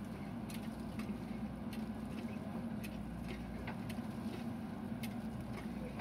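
JCB 3DX backhoe loader's diesel engine running steadily under hydraulic work as the backhoe arm dumps soil and swings back into the trench, with scattered sharp ticks about once a second.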